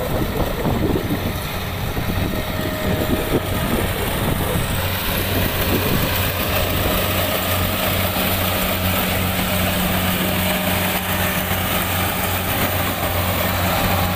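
Rice combine harvester engine running with a steady low drone. Gusts of wind buffet the microphone during the first few seconds.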